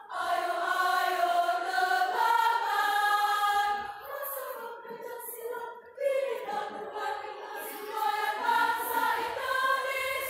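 Women's choir singing together in several voices, in long held phrases, with a fresh phrase starting about six seconds in.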